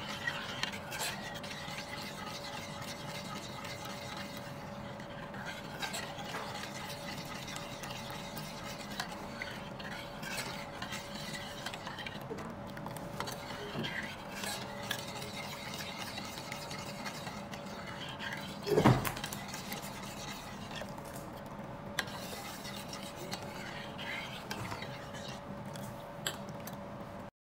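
Metal spoon stirring and scraping a simmering jam sauce, thickened with cornstarch, in a stainless steel saucepan, with light clinks against the pan over a steady hum. A single thump about two-thirds of the way through is the loudest sound.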